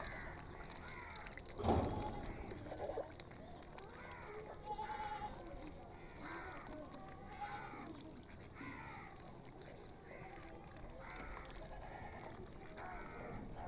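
Mallard-type ducks dabbling in a shallow muddy puddle: bills splashing and sifting through the water with a run of small wet clicks. Faint calls rise and fall in pitch in the background, with one louder thump about two seconds in.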